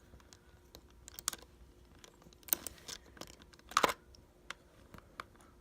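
Scattered small clicks and scrapes of a Phillips screwdriver turning a tiny screw out of a plastic calculator case, the loudest click near the end.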